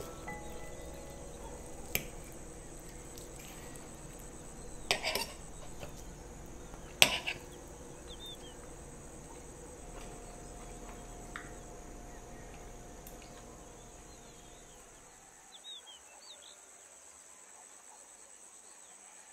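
Metal cutlery clinking on a ceramic plate while a meal of braised meat is eaten: a few sharp clinks about two, five and seven seconds in, the one near seven seconds loudest. Under them runs a steady high-pitched background tone with a few faint high chirps, fading out toward the end.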